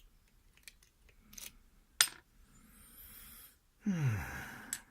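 Small metallic clicks and ticks of lock-picking tools working a spool-pinned mortise cylinder, with one sharper click about two seconds in. Near the end, a breathy exhale and a short groan falling in pitch.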